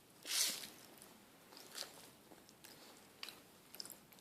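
Pop Rocks candy being chewed, with faint crunching and several small scattered clicks and crackles. A louder hissing rush comes about half a second in.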